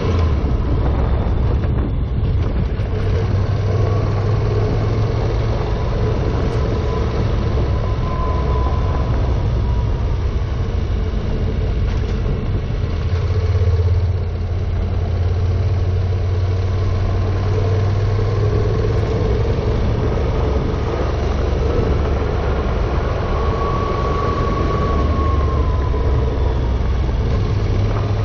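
Honda NC700X's parallel-twin engine running steadily as the motorcycle is ridden along a gravel road, its note rising and falling slightly a few times, over a continuous noise of tyres on gravel.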